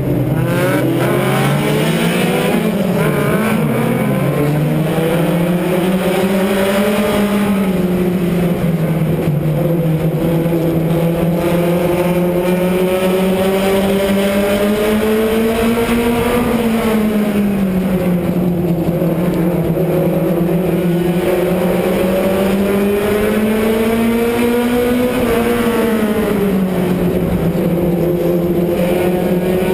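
Onboard sound of a stadium stock race car's engine at racing speed. It accelerates hard about a second in, then its pitch climbs and falls in long swells every several seconds, revving up on the straights and dropping back for the turns.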